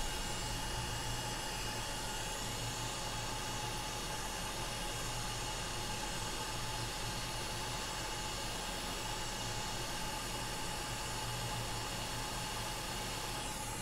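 Hot air rework station blowing a steady hiss of air onto a BGA chip, melting the solder under the A14 CPU so it can be lifted off, with a faint steady whine underneath.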